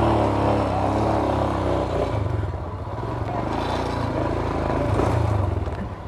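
Royal Enfield Himalayan's single-cylinder engine idling steadily with a low, even pulse.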